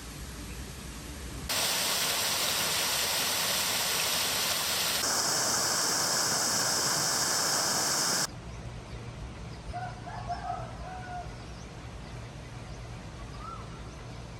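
Loud, steady rushing water, cut in abruptly in two sections of different tone and stopping suddenly about halfway through. After it comes quieter outdoor ambience with birds chirping now and then.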